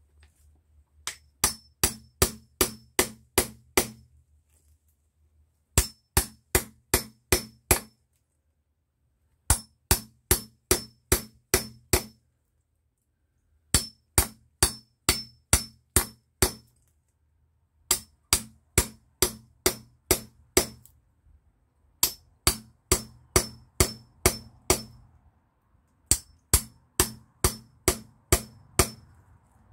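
Hand hammering on a blade set into a green cherry plum branch, cutting in to free a walking-stick billet. The strikes ring and come in seven runs of six to eight blows, about three a second, with short pauses between runs.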